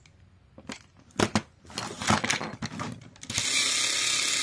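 Small plastic clicks, knocks and rattles as a Tomy James toy engine's red plastic body is screwed and fitted together by hand. About three seconds in, a steady, louder hiss starts and carries on.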